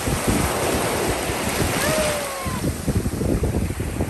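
Shallow sea surf washing and fizzing, with gusty wind buffeting the microphone. A few faint, short squeaks sound about two seconds in.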